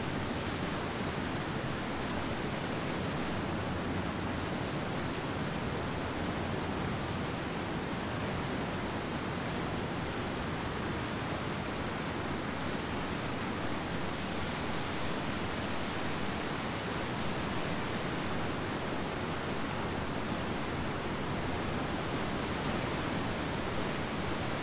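Ocean surf on a beach: a steady, even wash of noise with no separate wave crashes standing out.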